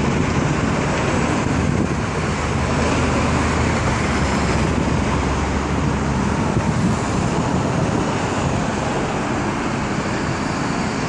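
Steady road traffic noise: a continuous wash of passing cars.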